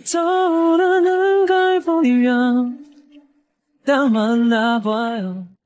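A woman singing two long held phrases with no instruments. The first lasts about three seconds and steps down in pitch about two seconds in. The second, shorter phrase starts about four seconds in.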